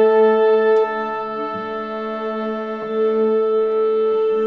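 Orchestra tuning: a long, steady A is held, with the oboe sounding, and other instruments join on further sustained notes about one and a half and three seconds in.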